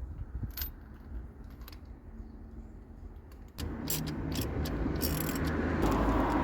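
Light metallic clinks of hand tools working on a car engine. About halfway through, a louder steady rumble with hiss comes in suddenly.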